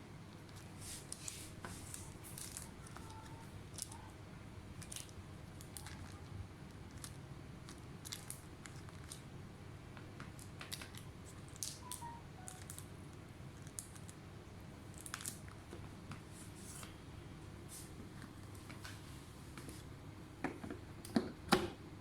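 Scattered light clicks and scrapes of hands and small tools working on an open laptop, with a short run of louder clicks near the end, over a steady low room hum.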